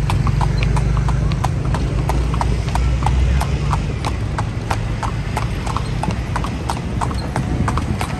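Hooves of a calèche horse clip-clopping in a steady, even rhythm, over a low steady rumble.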